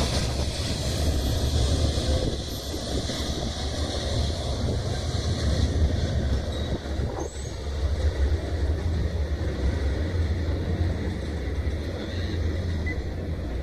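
Container freight train hauled by an EF210 electric locomotive rolling past with a steady low rumble. A short rising squeal comes about halfway through.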